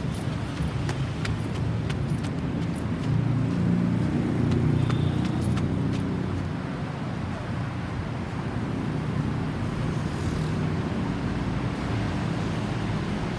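Motor vehicle engine and road noise, a steady low rumble that swells for a few seconds about three seconds in, as a vehicle passes close.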